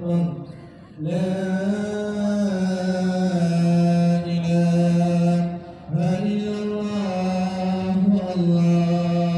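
A voice chanting an Islamic devotional chant in long, drawn-out phrases. Each phrase is held for about four to five seconds, with a brief pause for breath between.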